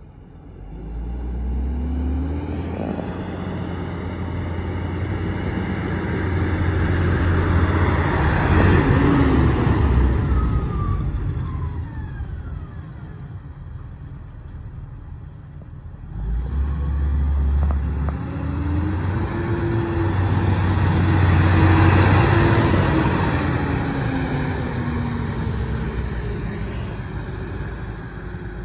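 Fendt 936 Vario tractor's six-cylinder diesel engine running as the tractor drives past twice. Each time it grows louder, peaks as it goes by, then fades, and its pitch drops as it passes.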